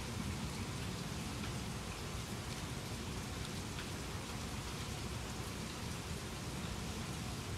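Steady rain falling, with a few drops ticking close by.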